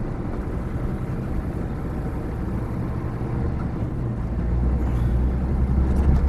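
Heavy truck engine idling with a steady low rumble, growing a little louder and deeper about four seconds in.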